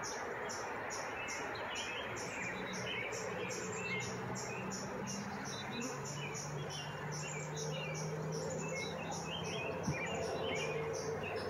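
Honeybees buzzing as they fly in and out of a hive entrance, a low hum that swells and shifts in pitch as bees pass close, from about two seconds in. Small birds chirp in the background.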